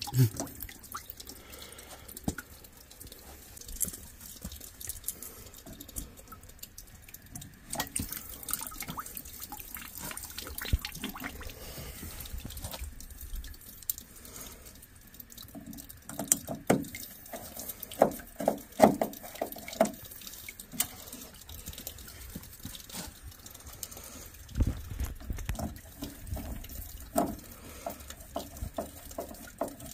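Water dripping and trickling, with scattered irregular clicks, clinks and knocks as fittings and parts on a tankless water heater are handled.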